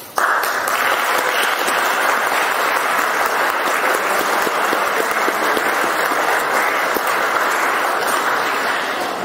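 Audience applauding steadily. It breaks out suddenly at the start and begins to die down near the end.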